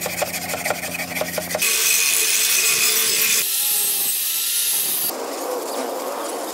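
Short workshop clips in a row. First, brisk scrubbing strokes on a rusty blade in a tub of liquid over a steady low hum. Then, about a second and a half in, an angle grinder grinding metal with a loud hiss for several seconds. Near the end comes the steady crackle of stick (arc) welding.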